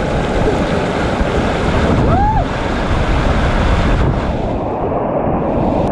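Steady rushing wind noise over the microphone of a moving motorcycle. A short tone rises and falls about two seconds in.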